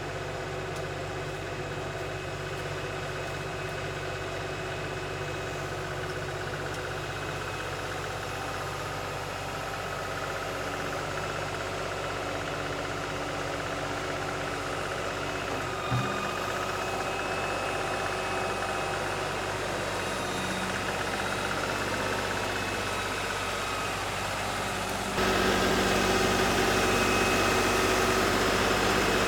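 LS XR3135 compact tractor's diesel engine running steadily. There is a single short knock partway through, and near the end the engine suddenly gets louder.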